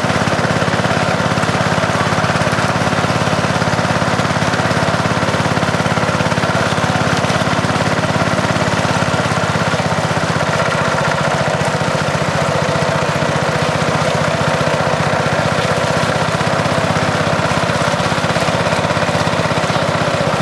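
The river raft's small engine running steadily at an even, fast putter.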